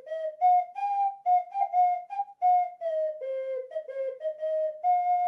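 3D-printed PLA ocarina played as a halting run of short, pure whistling notes that step up and down in pitch, blown by a player who does not know the proper fingering.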